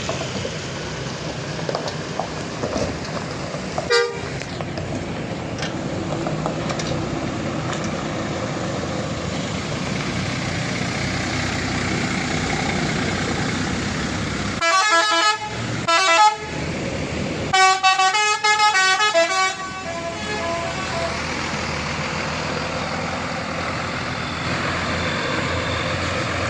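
Bus basuri "telolet" musical horn playing two short runs of quickly changing notes, the first about halfway through and the second a couple of seconds later, over steady road and engine noise. A single short horn blip sounds a few seconds in.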